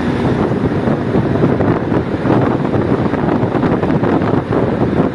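Strong wind rushing through a tunnel and buffeting the microphone: a loud, steady rushing noise with a constant flutter.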